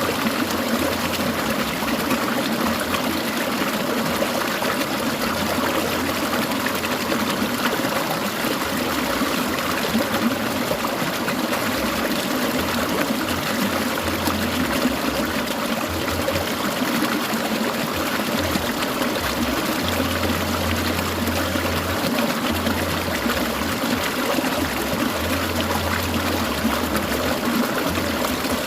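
Shallow mountain stream of clear water trickling and burbling over stones, a steady, unbroken flow.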